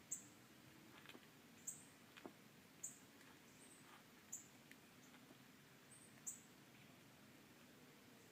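Near silence broken by faint, short, high-pitched chirps from a small bird, coming every second or two.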